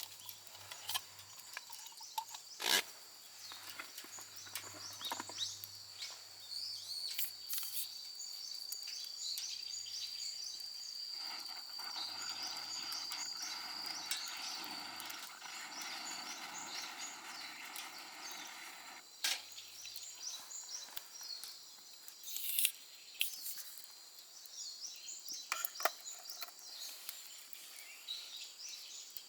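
Forest ambience at a campsite: high chirping carries on throughout, with scattered sharp crackles and pops from a wood campfire. A rushing hiss swells for several seconds in the middle.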